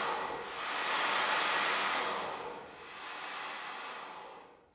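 Handheld hair dryer with a diffuser attachment, blowing air steadily while held against the curly hair to dry it; the rushing sound eases slightly partway through and cuts off sharply near the end.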